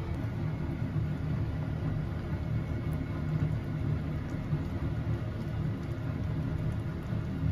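A steady low rumble that stays the same throughout, with no clear pitch and no separate knocks.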